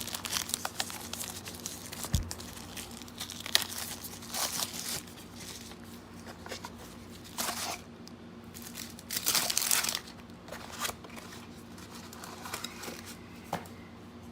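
Product packaging crinkling and rustling as it is handled and opened, with a few sharp clicks; the loudest bursts of crinkling come a little past halfway.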